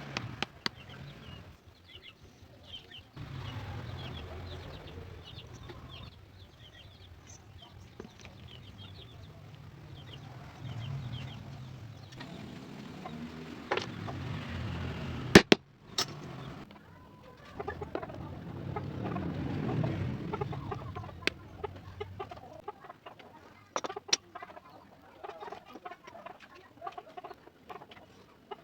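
Wood being worked by hand: scattered taps and knocks, two sharp knocks about halfway through, over stretches of a low hum.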